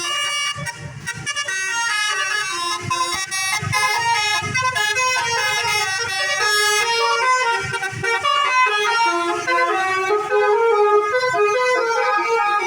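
Bus telolet horn, a multi-tone musical air horn on a Basuri bus, playing a tune: a run of loud horn notes stepping up and down in pitch, one after another.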